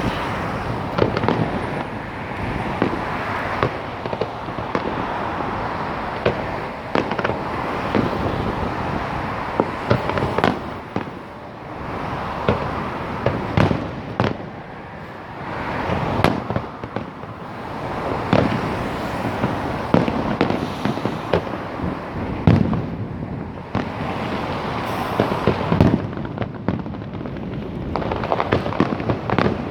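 Fireworks display: a dense run of sharp bangs over continuous crackling, easing briefly about a third of the way through and building again near the end.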